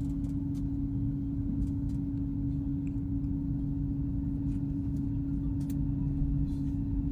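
Cabin sound of a Fuxing high-speed train starting to pull slowly out of the station: a steady low rumble with a constant hum and a few faint clicks.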